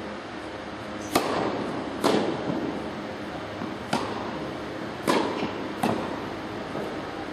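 Tennis rackets striking the ball in a rally: five sharp pops at uneven intervals, each ringing briefly in the echoing indoor hall.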